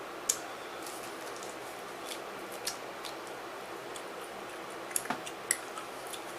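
A few short, sharp clicks and ticks over a steady hiss: one loud click about a second in, a softer one near the middle, and a quick cluster of three near the end.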